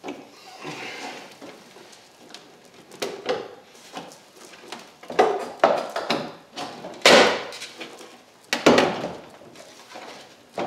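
Tail light housing of a 1981 Camaro being rocked and pulled out of the body, making a series of irregular knocks and creaks, loudest about seven seconds in. It is hanging up on a hardened, deteriorated body gasket.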